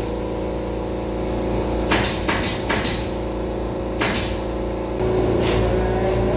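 Steady machine hum with a quick run of four sharp knocks about two seconds in and a single knock about four seconds in.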